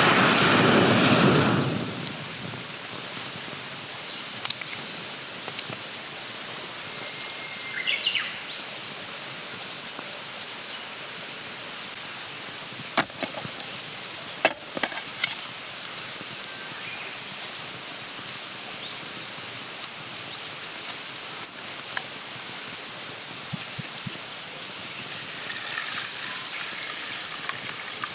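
Campfire burning with a steady hiss and occasional sharp crackles and pops of the wood, a few of them close together about halfway through. A loud rushing noise fills the first second or so.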